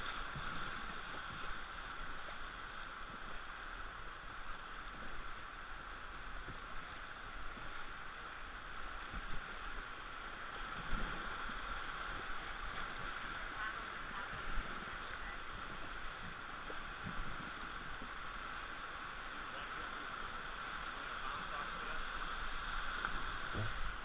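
Steady rush of whitewater flowing around an inflatable raft, with a few brief low thumps.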